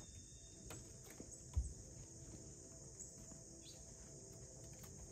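Faint, steady, high-pitched chirring of insects, with a single low thump about a second and a half in.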